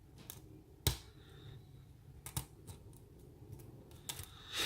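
Metal lock pick working the pins inside a pin-tumbler lock core, giving faint scraping and a few sharp clicks: one about a second in, one in the middle and a couple near the end.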